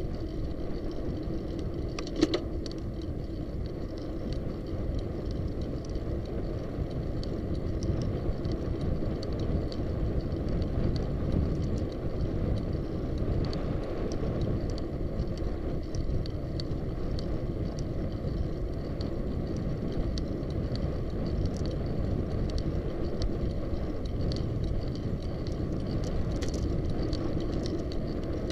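Bicycle riding noise: wind rumbling on the camera microphone and tyres rolling on pavement, with scattered small clicks and rattles and one sharper click about two seconds in.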